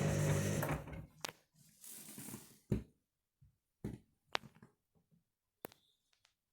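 Washing machine drum motor running steadily during the main wash, then stopping about a second in. A handful of sharp, separate clicks and knocks follow as the drum comes to rest.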